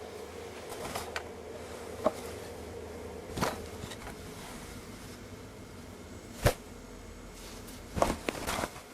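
Long hair swinging down and striking the back of a chair, heard as a few separate short swishes and knocks: one about two seconds in, one midway, a sharp one later, and a quick cluster near the end.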